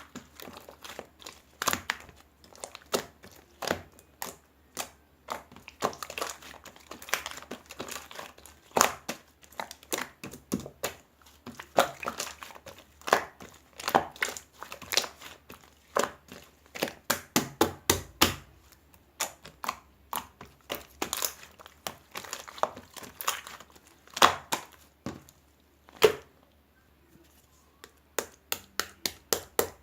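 Irregular crinkling and crackling, a dense string of sharp crackles with short pauses, then a quick, evenly spaced run of clicks near the end.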